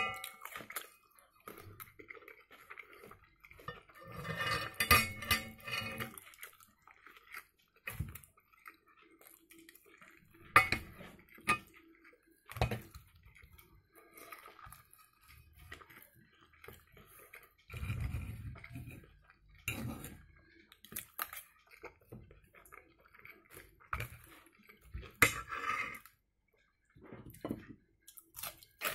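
Metal spoon and fork scraping and clinking against a frying pan, in scattered sharp clicks and scrapes with a busier stretch of scraping about five seconds in, and chewing of eggs and sausage in between.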